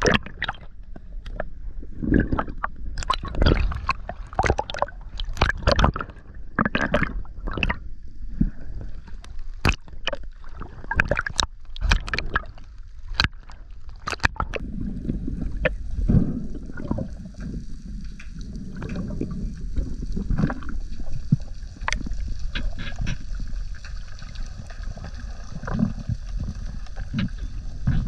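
Water heard through an underwater camera: swishing and gurgling against the housing with irregular knocks and clicks, turning about halfway through into a steadier hiss with a low hum.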